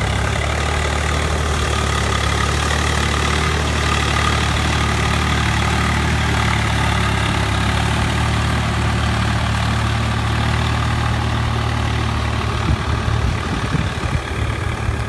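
Swaraj 744 FE tractor's three-cylinder diesel engine running steadily as it pulls a rotavator through a flooded paddy field. The sound turns uneven near the end.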